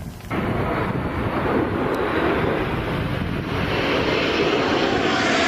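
Fixed-wing military aircraft flying overhead, its engine noise starting abruptly and growing steadily louder as it approaches.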